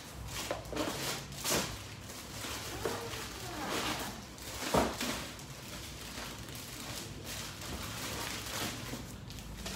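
Rummaging in an open cardboard shipping box: the cardboard flaps and the wrapped items inside rustle and knock as they are handled. The knocks are scattered through the first half, the loudest a little under five seconds in, and the handling turns quieter after that.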